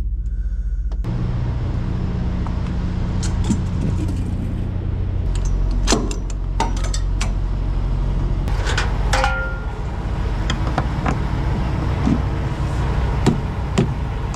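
Semi truck's diesel engine idling with a steady low rumble, which gets louder about a second in, with scattered sharp clicks and clanks of handling close by.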